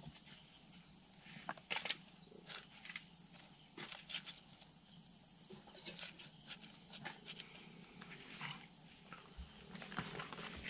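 Faint, scattered wet clicks and rustles of hands pushing onion and lemongrass into the cavity of a whole raw chicken and handling it in a plastic basin, over a steady high background hiss.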